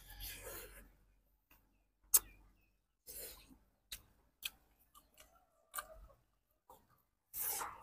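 Close-up eating sounds from a person chewing and gnawing bone-in chicken pieces: scattered sharp mouth clicks between short stretches of chewing. The sharpest click comes about two seconds in.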